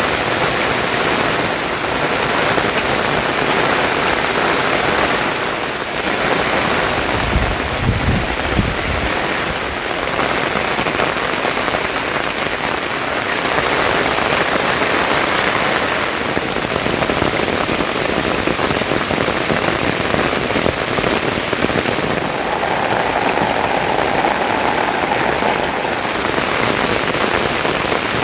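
Steady rain falling, with a brief low rumble about eight seconds in.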